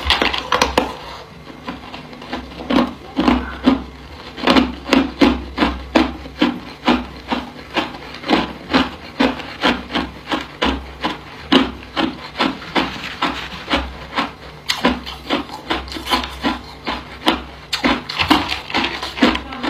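Hard ice cubes crunched between the teeth in steady, rhythmic chewing, about two crunches a second. Near the end, ice cubes clink in a plastic tray as more are picked out.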